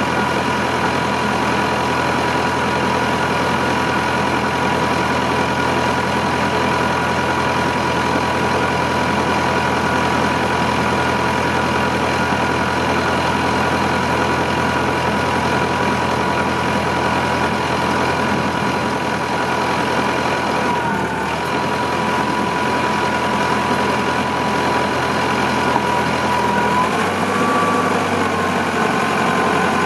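Allis-Chalmers 840 wheel loader's engine idling steadily with a thin high whine over it. About two-thirds of the way through the whine dips briefly, and near the end it rises and the engine note changes as the hydraulics move the engine-puller attachment.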